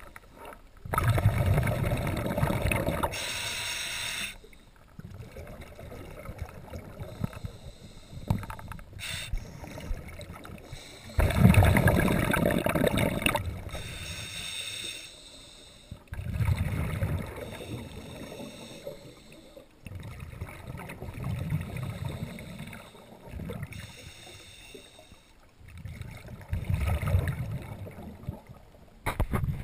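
Scuba diver breathing through a demand regulator underwater: bursts of exhaled bubbles every few seconds, each lasting one to three seconds, with quieter stretches between.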